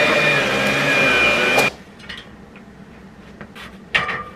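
Vacuum cleaner running, a steady motor whine over a rushing hiss, which cuts off abruptly about one and a half seconds in. A few faint knocks follow.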